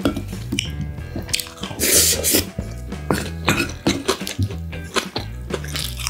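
Wooden spoon scraping and scooping kimchi fried rice in a ceramic bowl, with eating clicks and chewing, over background music. A short, loud, noisy burst comes about two seconds in.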